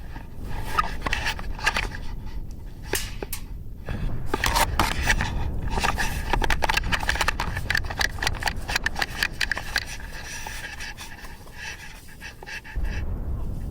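A player breathing hard, panting, close to a body-worn microphone. It is mixed with rustling and scraping, and a dense run of sharp clicks comes in the middle.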